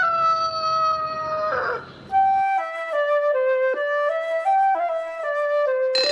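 Music: one long held note on a flute-like wind instrument, then a melody of short stepped notes on the same kind of instrument.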